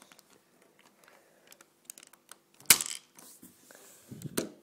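Small plastic clicks from a Lego vending machine being worked, then about two and a half seconds in one sharp clatter as the soda can is knocked out and drops, followed by a few more light clicks near the end.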